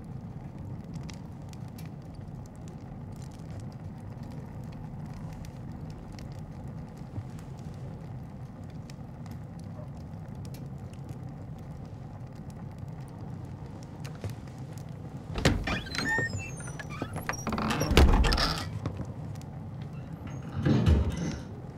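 Steady low blizzard wind with faint scattered ticks, then three louder bumps or rushes in the last several seconds.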